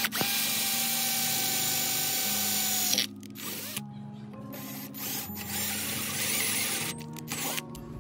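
Power drill boring into the metal mounting lug of a pump motor's end housing: it runs at a steady whine for about three seconds and stops, then runs again in shorter spells.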